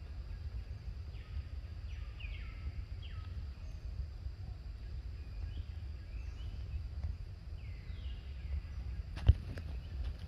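Outdoor ambience with a low steady rumble and a scattering of short, faint calls that fall in pitch. One sharp knock about nine seconds in.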